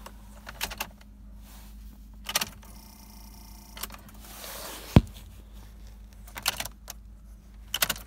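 Irregular light clicks and rattles from car keys being handled at the ignition, with one sharp knock about five seconds in.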